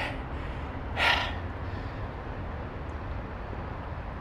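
A man's single heavy breath out about a second in, as he catches his breath after running a beep test, over a steady low rumble.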